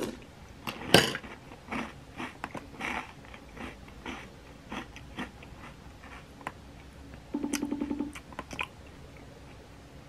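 Someone chewing and biting crunchy food, in irregular crunches through the first six seconds. About seven seconds in comes a short, rapidly pulsing buzz.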